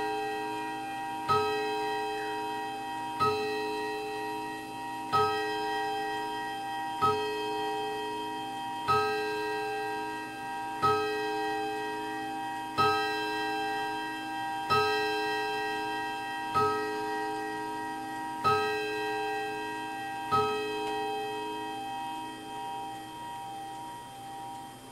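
Seth Thomas mantel clock's 8-day movement striking twelve o'clock on its chime rods: eleven slow, even strikes about two seconds apart, each ringing on into the next, the last fading out near the end.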